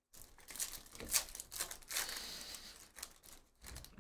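Foil wrapper of a trading-card pack being torn open and crinkled by hand, with sharp tearing peaks about a second and two seconds in.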